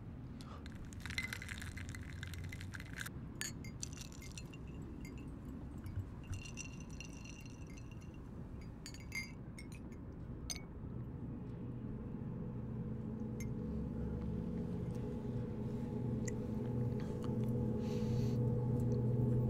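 Sparse light clinks and short chime-like rings of glass over a faint low hum, then a low droning tone that swells steadily louder from about halfway in.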